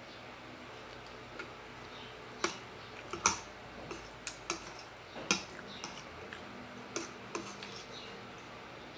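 Close-up eating sounds: a scattered run of sharp clicks and wet smacks of chewing, loudest about three and five seconds in.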